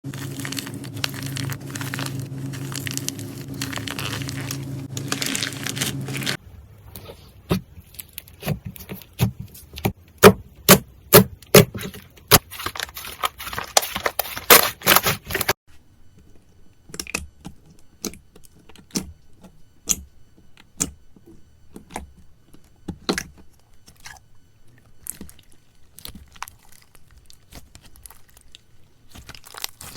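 Slime being handled, with sharp crackling clicks and pops, dense at first and sparser later. A steady low hum under noise fills the first six seconds or so.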